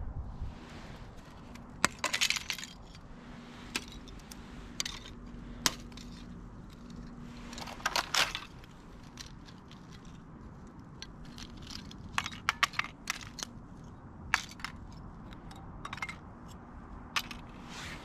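Thin sheets of ice cracking and clinking as gloved hands break them off the twigs of an ice-coated sapling: scattered sharp snaps and tinkles, in clusters about two seconds in, around eight seconds, and again between twelve and fifteen seconds.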